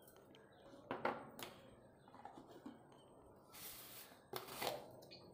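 Light clicks and taps of spice containers and a spoon being handled, twice, with a short rustle in between.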